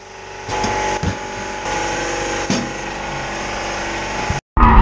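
Tyre-changing machine running with a steady motor whine as a tyre is worked onto its rim, with a few knocks of tyre and tools against the machine. It cuts off about four seconds in, and a loud car engine starts just before the end.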